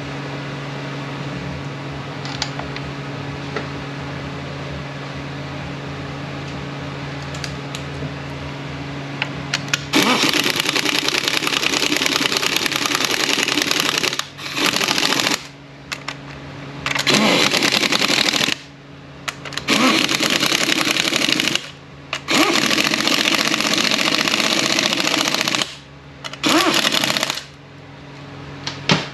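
Steady shop hum for about the first ten seconds. Then a pneumatic wrench runs down the 10 mm bolts on the 231J transfer case housing in six loud bursts of about one to four seconds each, with short pauses between them.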